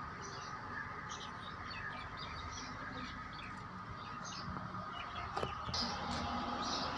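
Small birds chirping in quick, irregular notes over a steady low machine hum with a faint steady whine.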